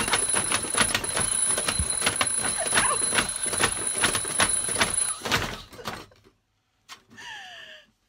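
Rubber arm of a motor-driven slapping alarm clock smacking a woman's face over and over, several slaps a second, while she laughs and shrieks, with a thin steady high whine under the slapping. The slapping stops about five seconds in, and a short squeal of laughter follows near the end.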